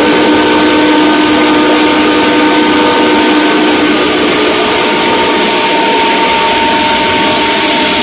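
Hammer mill running at steady speed: a loud, even rushing noise with a few steady whining tones from the spinning rotor and motor.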